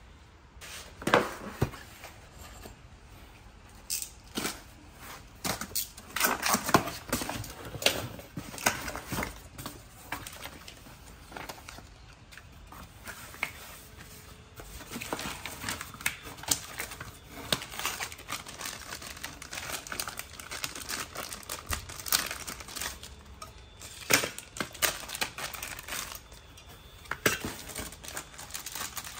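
Plastic wrapping and foam packaging crinkling and rustling while a TV and its mounting parts are unpacked, with irregular clicks and knocks as pieces are handled.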